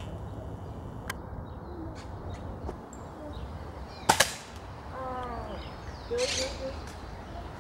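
A single sharp crack of a 5.5 mm (.22) air rifle shot about four seconds in, followed about a second later by a short falling call and then a brief rustle.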